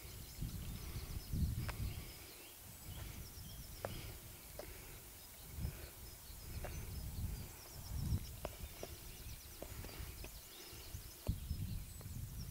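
Outdoor ambience: wind gusting on the microphone as an uneven low rumble, small birds chirping in quick high series, and a few sharp clicks.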